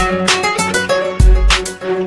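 A smartphone ringtone playing: a tune of quick, sharp notes over deep bass hits.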